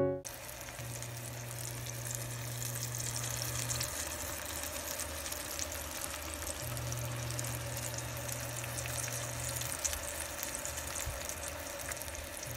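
Fried eggs and tteokgalbi patties sizzling in a frying pan, a steady crackling hiss. A low hum sounds underneath for the first few seconds and again from about seven to ten seconds in.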